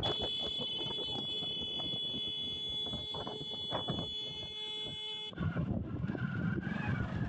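A motorcycle horn held in one long steady blast over engine and wind noise, cutting off after about five seconds.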